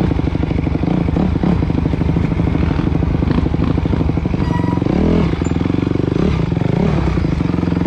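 Enduro motorcycle engine running as it is ridden at low speed over a rough trail. The revs rise and drop sharply about five seconds in, with smaller throttle changes elsewhere.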